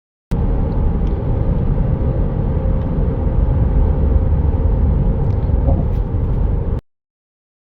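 Toyota 4Runner driving on the highway: a steady low rumble of road and engine noise. It cuts in abruptly just after the start and cuts off abruptly about a second before the end.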